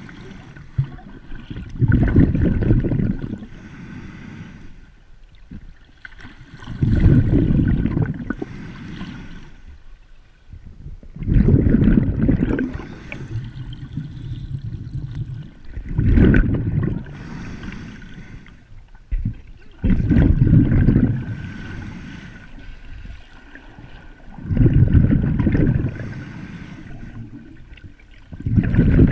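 Muffled water noise heard through an underwater camera, swelling into loud rushing surges about every four to five seconds as the snorkelers swim, with a quieter hiss between them.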